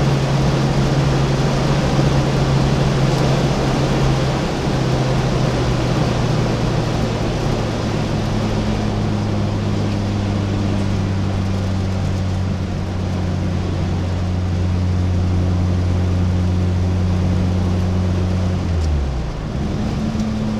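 In-cabin sound of a VW Golf 2 GTI's 1.8-litre four-cylinder engine running hard at steady high revs at speed, under a constant rush of road and wind noise. The engine note steps slightly about four seconds in and dips briefly, then settles at a new pitch, near the end.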